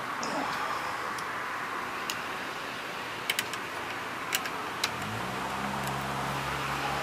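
A few sharp light clicks of small metal carburetor parts being handled, about two to five seconds in, over a steady background hiss; a low steady hum starts near the five-second mark.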